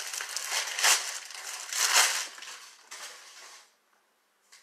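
Packing wrap being rustled and crumpled by hand, with louder surges about one and two seconds in, dying away after about three and a half seconds, and one small click near the end.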